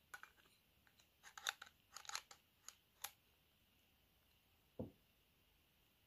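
Faint handling sounds of a mobile phone: a run of short clicks and ticks in the first three seconds, like keys being pressed, then one soft thump near the end.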